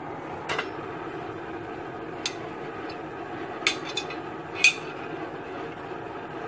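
Steel pieces clinking and knocking against each other five times, the last the loudest with a short metallic ring, over a steady rushing noise.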